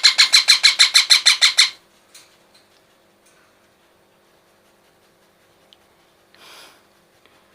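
Parrot chick calling in a fast, even string of harsh calls, about nine a second, which stops abruptly about two seconds in. A brief soft hiss follows near the end.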